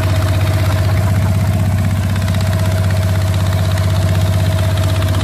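Motor of a small wooden river boat running steadily under way: a constant low hum with a rapid, even pulse.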